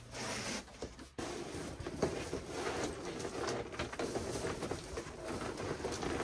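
Reflective bubble-foil windshield sunshade crinkling and rustling in irregular bursts as it is pulled off the glass and folded.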